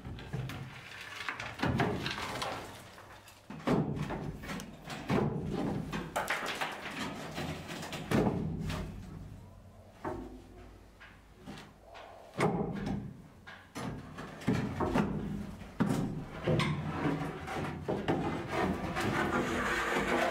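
Irregular knocks, bangs and scraping of interior demolition work inside a steel ship's hull.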